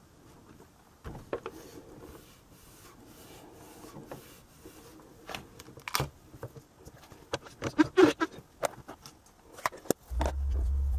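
Light clicks, taps and rubbing from small plastic and magnetic stamping-tool parts being handled on a desk. A low steady hum comes in near the end.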